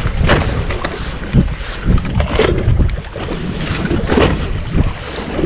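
Wind buffeting the microphone over water sloshing against the hull of a small fishing boat at sea, in irregular gusts and splashes.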